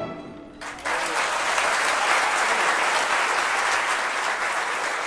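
The last chord of a symphony orchestra fades away in the hall. About a second in, the audience breaks into steady applause.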